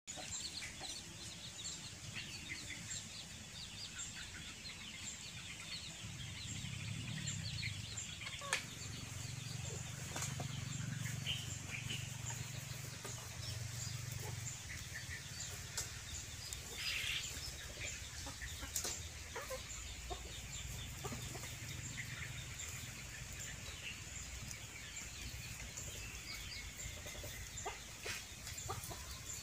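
Domestic chickens clucking as they forage, with many short, high chirps scattered throughout.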